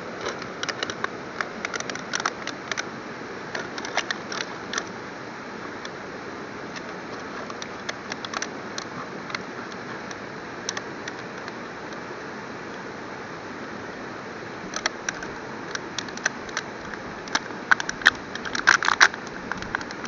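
Knife blade working through a thin plastic water bottle, giving scattered sharp clicks and crackles of the plastic, with a run of louder crinkling near the end as the bottle is handled. A steady hiss lies underneath.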